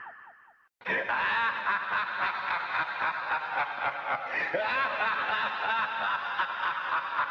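Laugh vocal sample played on its own: after a short drop to silence, a long run of rapid, pulsing laughter starts about a second in.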